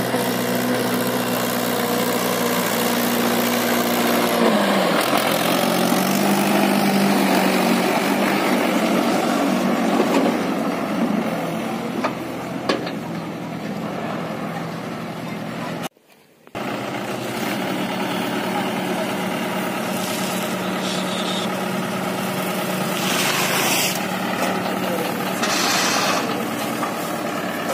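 Mahindra 575 DI tractor's four-cylinder diesel engine running under load as it pulls a trolley heaped with soil. Its pitch drops and then rises again about five seconds in. The sound cuts out briefly just after the middle, then the engine runs on steadily.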